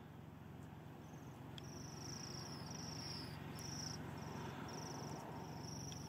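Bohemian waxwings calling: a run of about eight short, high trilled notes, each under half a second, starting about a second in, over a low background rumble.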